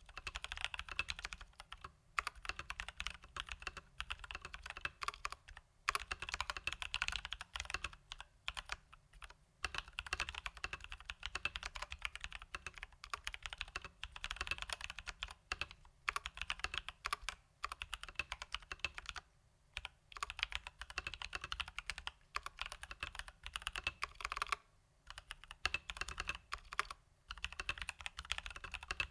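Fast, continuous typing on a Leopold FC980M mechanical keyboard fitted with tactile Durock T1 switches lubed with Krytox 205g0 and stock keycaps. The key presses come in dense runs broken by short pauses every few seconds.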